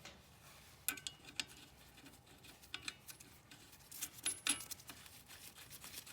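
Light metallic clicks and clinks of a Nord-Lock wedge-locking washer and nut being handled and fitted onto a car's sway bar end link stud, scattered and irregular, with the loudest few about four seconds in.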